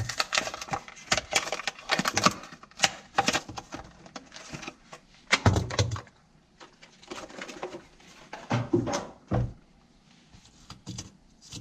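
Matchbox toy-car packaging being opened by hand: a long run of rapid crackling and clicks, then a few dull thumps and scattered clicks.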